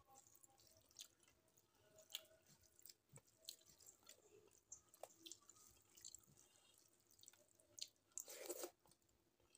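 Fingers mixing rice with masoor dal on a metal plate make faint soft, wet squishing sounds, with scattered light clicks against the plate. Near the end there is a louder, half-second mouthful sound as the handful is eaten.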